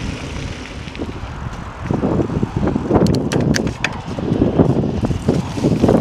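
E-bike ridden over a rough gravel and grass track: an uneven low rumble and rattle, with wind buffeting the microphone and a quick run of sharp clicks about three seconds in.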